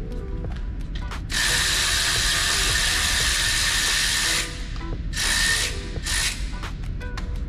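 Pneumatic wrench running a bolt in at a front brake assembly, with a hissing whine: one long burst of about three seconds, then a shorter burst and a brief final blip.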